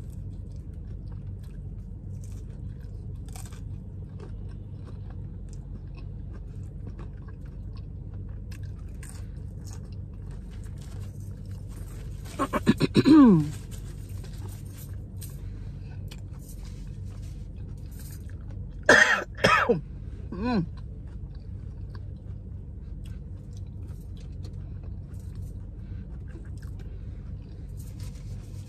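A person chewing food, with faint small wet clicks, over a steady low hum. About halfway through comes a loud vocal sound sliding down in pitch, and a few seconds later three short coughs.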